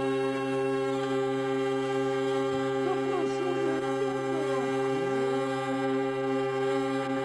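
Hurdy-gurdy being cranked: a steady drone of several held notes sounding together without a break. A few wavering, sliding notes rise over the drone in the middle.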